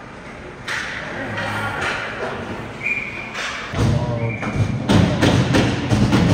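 Ice hockey game sounds: several thuds and knocks of sticks and puck, two short high whistle blasts about three and four and a half seconds in, then arena music with a heavy beat coming on about four seconds in and becoming the loudest sound.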